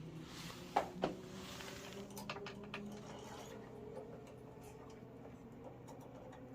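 Handling noises from fitting a thermostat into an immersion heater: a soft rustle with two sharp clicks about a second in, then scattered light ticks and taps.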